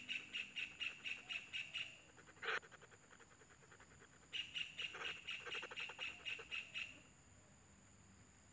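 Kingfisher nestlings in an earth burrow nest calling in rapid trains of high chirps, about five a second. The two trains last a few seconds each, with a single louder call between them.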